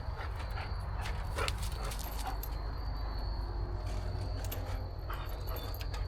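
A dog whimpering and yipping in a few short, high calls over a steady low rumble, with scattered light clicks.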